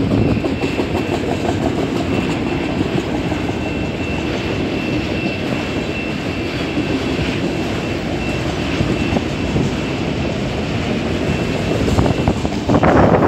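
Long CN freight train passing at speed: a steady rolling rumble of freight cars on the rails, with a thin high steady tone held for several seconds early on. Near the end the noise surges louder.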